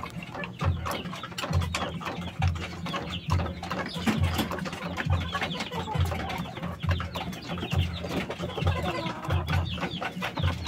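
Rooster pecking feed from a plastic bowl: quick beak clicks, with chickens clucking and chirping. A low thump repeats about once a second underneath.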